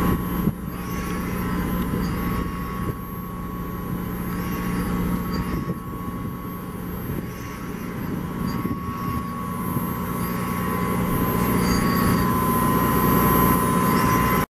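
Steady hum of a motor yacht's machinery running: a low drone with a constant thin whine over it, swelling and easing slightly in loudness.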